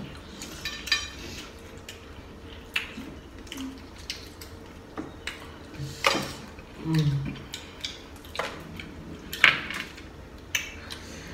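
Scattered sharp clicks and cracks of boiled shellfish being shelled and picked apart by hand over glass dishes, with the odd clink of dishware and a short murmur about seven seconds in.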